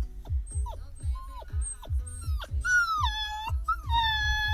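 Whippet puppy whining in short high rising-and-falling cries, then howling in two long high calls about three seconds in. Background music with a steady beat runs underneath.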